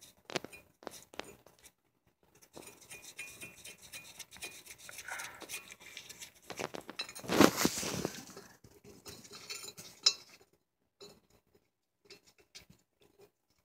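Metal-on-metal clinks and rattles of hand tools and parts being handled during suspension work, with a denser, louder clatter about seven seconds in and a single sharp clink around ten seconds.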